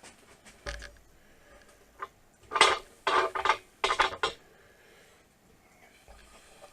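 Handling clatter of metal: a few light knocks, then three loud rattling clatters close together in the middle, as of a metal tool being moved and set down on a hard surface.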